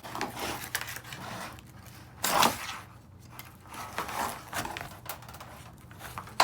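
Hands working the sliding-door cable mechanism's plastic and metal parts: scattered clicks and short scrapes, with one louder scrape about two and a half seconds in.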